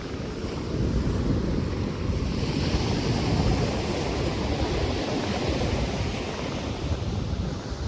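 Ocean surf washing onto the shore, with wind rustling palm fronds and gusts buffeting the microphone.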